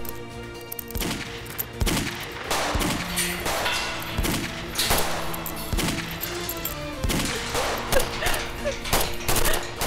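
Gunfire in a firefight: scattered single shots and short volleys at irregular spacing, about one a second, over a sustained dramatic music score.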